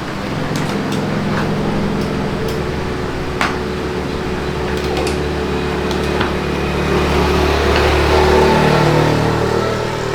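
A motor running steadily, swelling louder and higher around seven to eight seconds in and then easing back, with scattered light metallic clicks.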